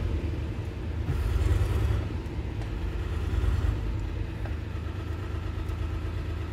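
Low, steady rumble of an engine running in the background.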